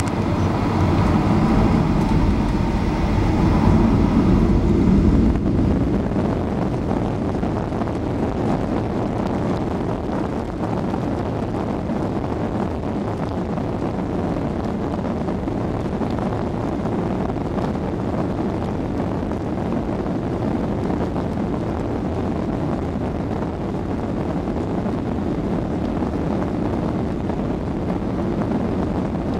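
Jet engines of a Boeing 737 heard inside the cabin over the wing as the airliner lines up and starts its takeoff roll: a steady rumble, with a whine over it in the first five seconds or so.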